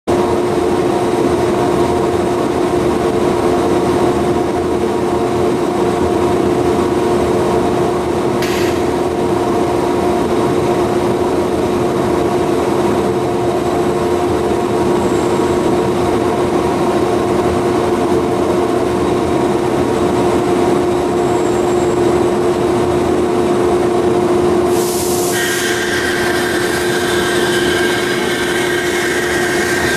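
Industrial bandsaw of an MBD Model 4400 robotic bandsawing system running with a steady, loud machine hum made of several fixed tones. About 25 seconds in there is a brief hiss, after which higher tones join the hum.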